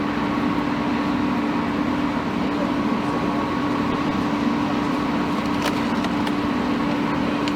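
Steady mechanical hum with a constant drone, like a vehicle engine running nearby, over a rushing outdoor background noise.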